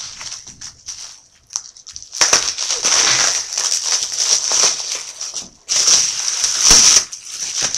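Delivery packaging being pulled open and unwrapped by hand, crinkling and crunching in two long stretches after a couple of quieter seconds of small rustles.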